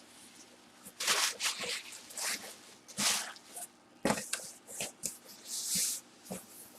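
Trading cards being handled and shuffled by hand: a string of short rustling swishes and light clicks, spaced irregularly.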